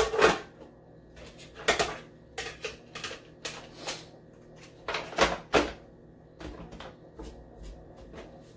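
Plastic parts of a single-serve coffee maker clicking and knocking as they are fitted back into place: a string of sharp snaps and taps, the loudest near the start and about five seconds in, then lighter taps.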